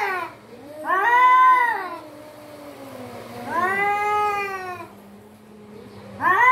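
Two cats yowling at each other in a nose-to-nose standoff: long, drawn-out calls that rise and fall in pitch, about one every two seconds, with a lower falling moan between them. This kind of caterwauling is typical of a territorial or aggressive face-off.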